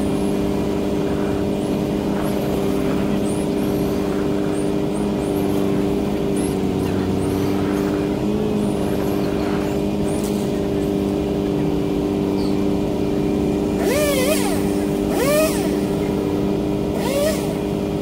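Steady drone of the bucket truck's engine running, with a remote-control car's motor whining up and down in three short revs near the end.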